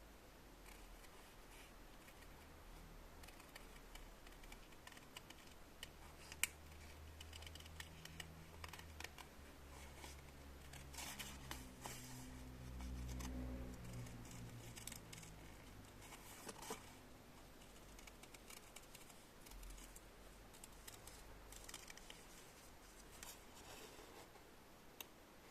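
Near silence: a faint low hum with scattered light clicks and ticks, a little louder about halfway through.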